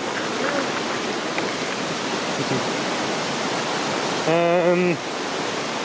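Steady, loud rush of falling mountain water. A short voice call cuts in about four seconds in.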